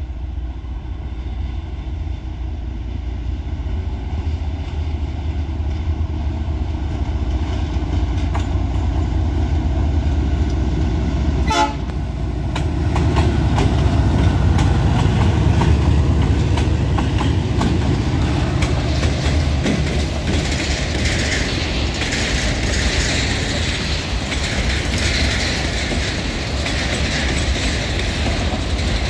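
A pair of GE ES43BBi diesel-electric locomotives, each with a V12 diesel, rumbling as they approach and pass, loudest about halfway through. Then the empty freight wagons roll by with a rattling clatter of wheels over the rails.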